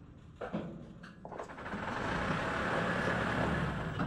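A rushing whoosh that swells over a couple of seconds and cuts off abruptly near the end, after a short knock about half a second in.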